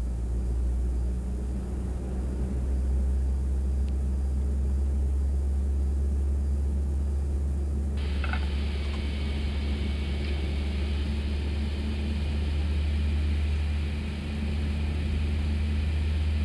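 Steady low hum of an Airbus A321neo's engines and air systems heard inside the cockpit during engine start, with engine one spooling up. About halfway through, a higher hiss joins the hum and stays.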